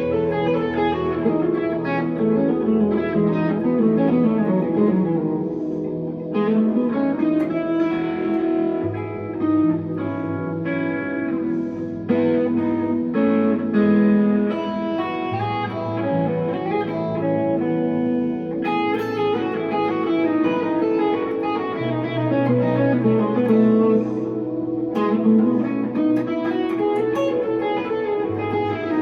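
1963 Fender Telecaster electric guitar played through a tube amp: a flowing melodic line with sliding notes over held low notes that change every few seconds.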